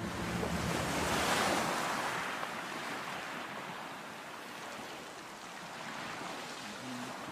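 Small waves breaking and washing up onto a sandy beach; the surf swells about a second in, then slowly fades as the water runs back.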